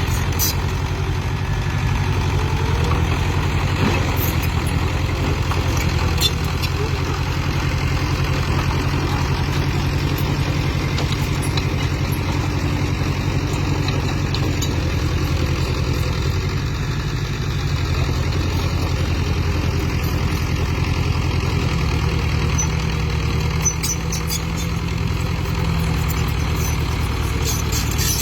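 Mini excavator's engine running steadily while it digs and levels soil, with a few faint clicks and clanks now and then.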